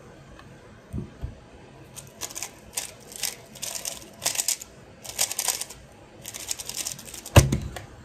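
Ball Core Super RS3 M 3x3 speedcube being turned very fast through a solve: dense runs of plastic clicking for about five seconds. It ends with a loud slap as both hands hit the SpeedStacks timer to stop it.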